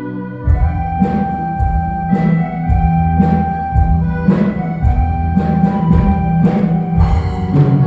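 Instrumental music with no voice: held chords, then a steady drum beat comes in about half a second in and carries on.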